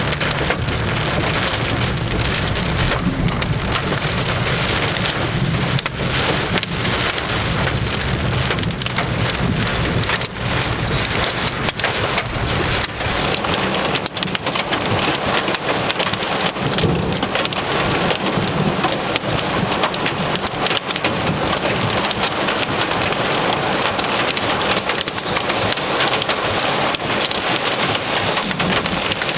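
Heavy rain pouring steadily, with many drops striking close by and a low rumble under it through the first half that fades after about 14 seconds.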